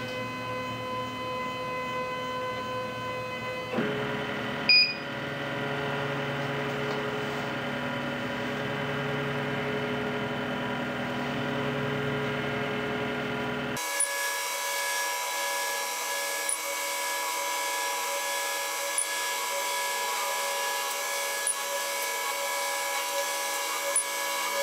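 Stepper motors of a hobby CNC hot-wire foam cutter driving the wire through a foam test cut: a steady electronic whine made of several held tones. The pitch shifts about four seconds in, with a sharp click just after, and about fourteen seconds in the whine jumps to a higher, thinner sound.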